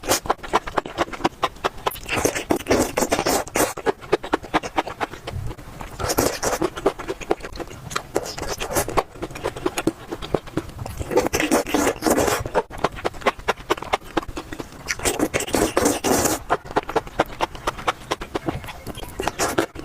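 Close-miked eating: steady wet chewing and mouth clicks, with a louder stretch of biting or slurping every four to five seconds.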